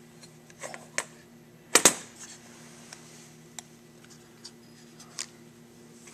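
Light clicks and taps of International 460 tractor carburetor parts being handled and fitted together, the venturi and gasket going into the carburetor body. The loudest is a sharp double clack about two seconds in, with a few softer ticks, over a steady faint low hum.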